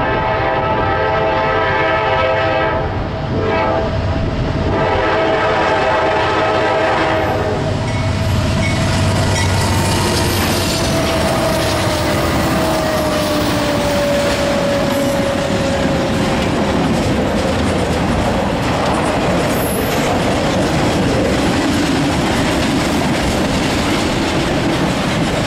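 Freight train passing a grade crossing: the lead diesel locomotive's air horn sounds, breaks off briefly about three seconds in, and sounds again until about seven and a half seconds in. The locomotives (a GE C40-9W and EMD SD60s) then rumble past, a long whine slides down in pitch, and the freight cars roll by with steady wheel-on-rail noise.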